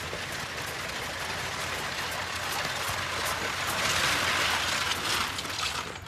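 Horse-drawn carriage rolling over gravel: a steady crunch of wheels with hoofbeats. It is loudest about four seconds in and falls off sharply near the end.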